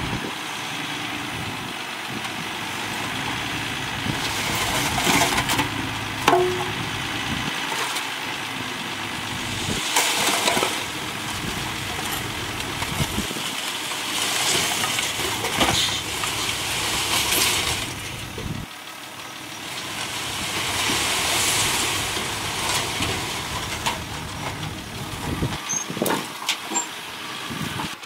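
Diesel dump truck engine running as the truck reverses and tips its load, with the rush of dirt and rocks sliding out of the raised bed midway through.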